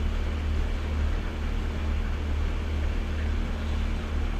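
Sailboat's engine running steadily at slow harbour speed: a low rumble with a faint steady hum above it, under an even rushing noise.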